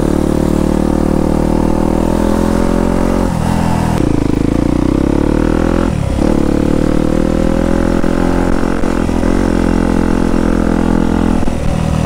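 Yamaha YZ250F dirt bike's single-cylinder four-stroke engine running while riding, its note climbing slowly. The note dips briefly about three and a half seconds in and again around six seconds.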